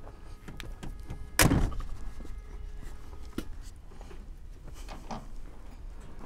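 Knocks and clanks from a flatbed truck's steel side rails and bed as a person climbs up onto it, with one loud clank about a second and a half in and a few lighter knocks after.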